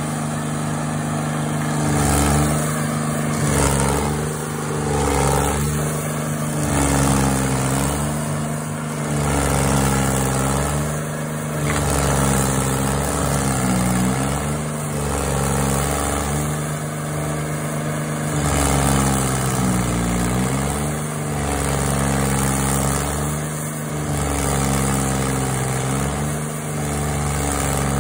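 Intimidator stump grinder's engine running hard while its cutter wheel is swept back and forth through a tree stump, grinding the wood. The engine pitch sags each time the wheel bites in and then recovers, about every two seconds.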